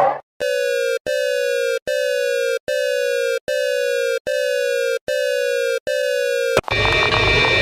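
Emergency alert tone: eight identical beeps in a steady rhythm, each a little under a second long and sliding slightly down in pitch, with short breaks between them. Near the end a different alert sound cuts in.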